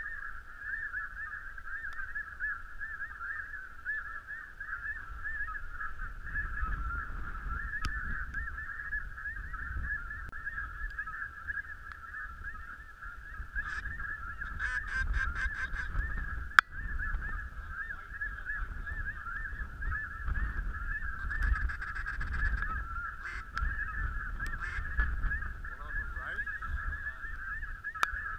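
Snow geese calling, a dense chorus that runs on without a break. One sharp click sounds about 16 seconds in.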